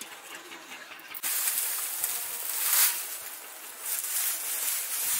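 Dry mustard-stalk straw rustling and crackling as it is handled and gathered into a wicker basket, starting suddenly about a second in and swelling and easing as armfuls are moved.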